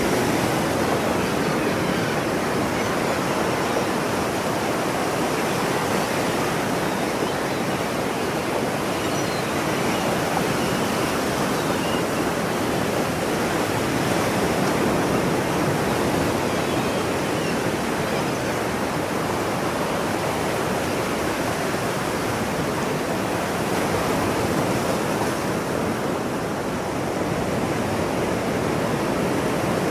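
Ocean surf: a steady, continuous wash of breaking waves, dipping slightly near the end.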